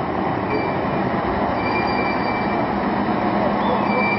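Heavy wheel loaders' diesel engines running in a steady, dense din, with thin high-pitched squeals coming and going on top.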